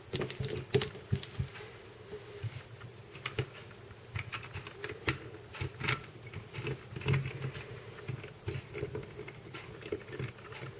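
Plastic pieces of a helicopter cube puzzle clicking and clacking irregularly as they are handled and an edge piece is fitted back into the partly rebuilt cube.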